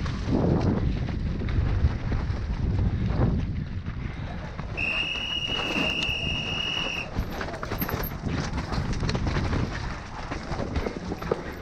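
Downhill mountain bike at speed over a rough, rocky track, heard from a helmet camera: tyres rumbling over dirt and rock and the bike rattling, with wind on the microphone. About five seconds in, a steady high-pitched tone sounds for about two seconds.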